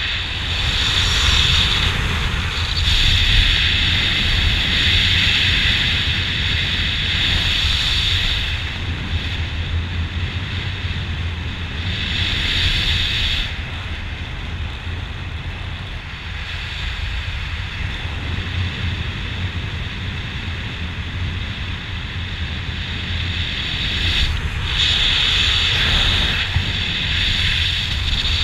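Wind rushing over a helmet-mounted camera's microphone during a parachute descent under an open canopy, a steady low rumble with a brighter hiss that swells and eases several times.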